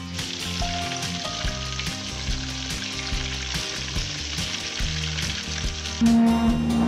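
Breaded tilapia pieces deep-frying in hot oil in a pan: a steady sizzle, with background music underneath. The sizzle stops about six seconds in as the music gets louder.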